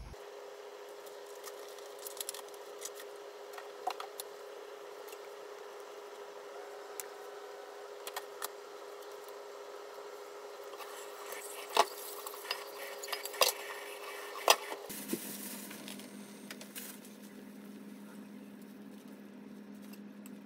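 Cooking sounds from a pot of fish-cake soup on a stove. A steady hum runs under scattered clicks and knocks against the metal pot, the sharpest a few taps around twelve to fourteen seconds in. The hum then drops lower in pitch.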